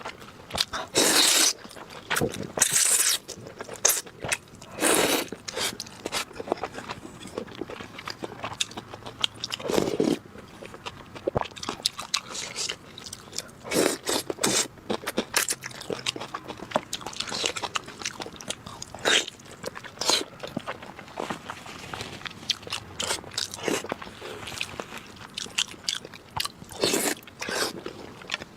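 Close-miked eating sounds: a person biting, chewing and crunching food, with many small clicks and louder bursts every few seconds.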